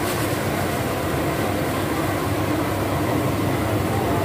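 Steady rushing noise of a large gas burner under a wide wok of green curry, with a brief splash near the start as sliced Thai eggplant is tipped into the curry.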